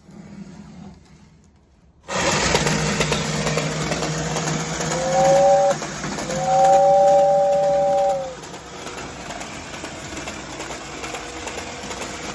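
Vintage 1960s battery-operated Modern Toys Western Special locomotive toy running, with a steady motor hum and a hissing puffing noise that start suddenly about two seconds in. Its two-note 'whoo-whoo' whistle blows twice: a short toot about five seconds in, then a longer one. The sound drops in level after the second whistle.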